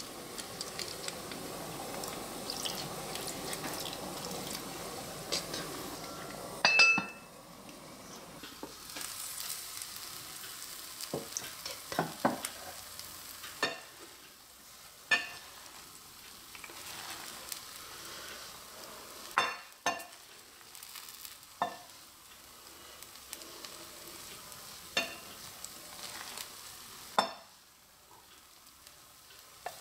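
Rice simmering and sizzling in a cast-iron pot, ending in a sharp clank about seven seconds in. Then a wooden spatula knocks and scrapes repeatedly against the pot and a ceramic bowl as the cooked abalone-and-mushroom rice is stirred and scooped out.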